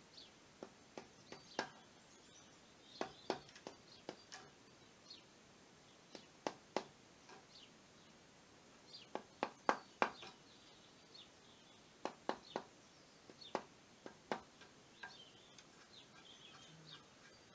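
Wooden mallet striking a chisel to cut a joint in timber: a string of irregular sharp knocks, some in quick clusters, the loudest near the middle. Birds chirp faintly.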